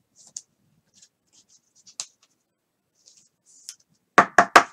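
Trading cards and foil pack wrappers being handled: faint crinkling and rustling, then three quick, loud handling sounds in a row near the end.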